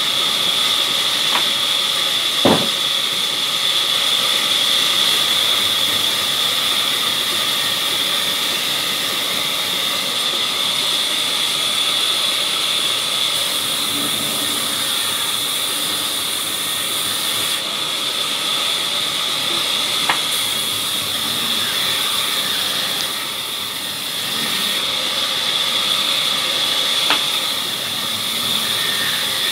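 Sawmill band saw running steadily, a continuous high whine and hiss. A few sharp knocks stand out, the loudest about two and a half seconds in.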